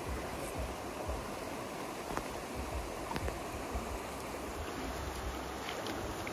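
Shallow creek running over rocks and gravel, a steady rushing, with a few faint clicks.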